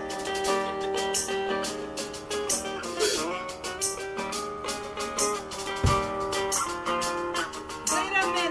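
Music led by a guitar, with sustained notes and frequent short percussive hits.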